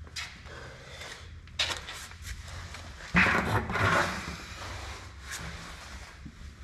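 Knocks and clatter of tools and parts being handled in a workshop, with the loudest, a rough clatter lasting about a second, about three seconds in, over a low steady hum.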